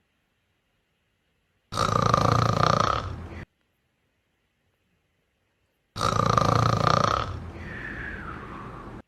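Cat snoring: two long snores about four seconds apart, the second trailing off into a falling whistle.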